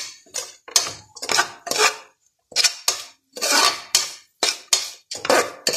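A metal spoon scraping and clinking against the bottom of an aluminium pressure cooker while onions, carrots and masala are sautéed, in short quick strokes about two a second, with a brief pause about two seconds in.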